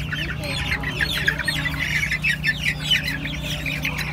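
A cage of young black chickens peeping and cheeping, many short, high, falling calls overlapping constantly over a steady low hum.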